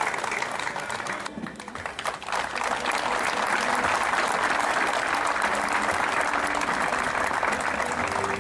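Stadium crowd applauding, thinning briefly about a second and a half in, then swelling again and holding steady.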